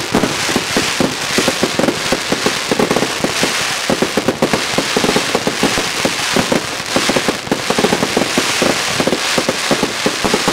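Fireworks going off in a fast, dense barrage, many bangs and crackles a second without a break.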